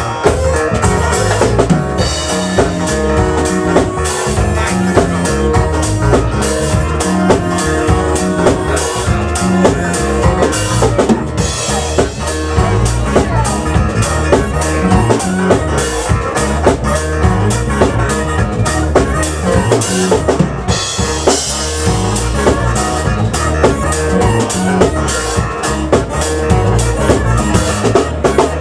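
Live band playing loud, with a drum kit keeping a steady beat under electric bass and guitar.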